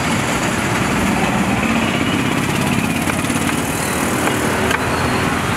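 A steady engine running amid street traffic noise, with a low rumble throughout. A couple of light clicks come about three and five seconds in.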